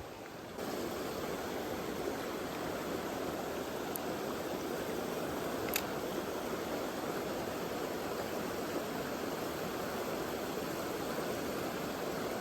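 Mountain stream water running, a steady rushing hiss that gets louder about half a second in, with a single short click near the middle.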